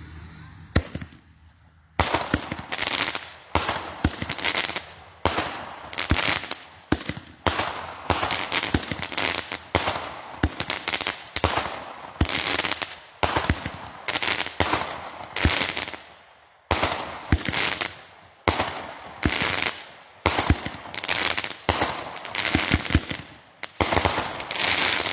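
Multi-shot consumer firework cake firing a long volley, starting about two seconds in with a quick run of sharp reports, roughly one to two a second, each followed by popping and crackling as the shells burst overhead.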